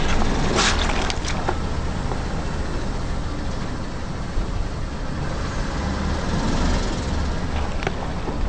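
A car tyre rolling slowly over a pineapple on asphalt. A few sharp crunching cracks come in the first second or so as the fruit splits, over the low, steady running of the car.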